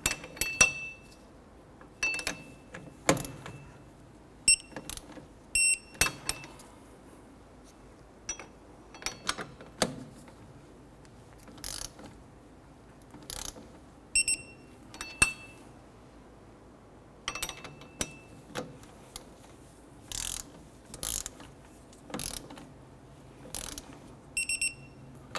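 Torque wrench ratcheting and clicking as the four wheel hub bolts are tightened down to 55 foot-pounds, in irregular bursts of sharp clicks. Short high-pitched beeps, often in pairs, sound about eight times among the ratcheting.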